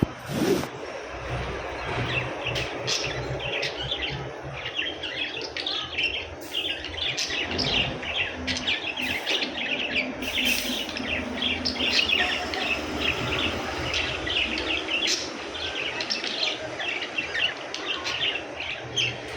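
Pet budgerigars chattering: a dense, continuous stream of rapid short chirps and warbles from several birds.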